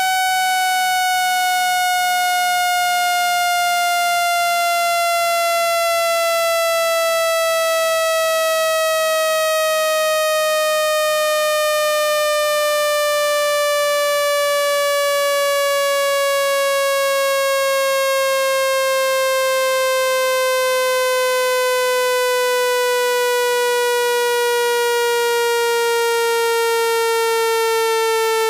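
Synthesized speaker-cleaning tone for ejecting water and dust from a phone speaker: one buzzy pitch with strong overtones, gliding slowly and steadily downward at an even, loud level.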